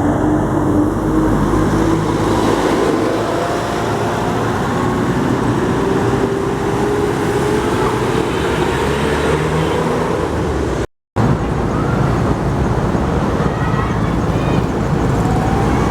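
Road traffic passing close by, with a heavy vehicle's engine climbing slowly and steadily in pitch as it accelerates. The sound cuts out completely for a moment about eleven seconds in, then the traffic noise carries on.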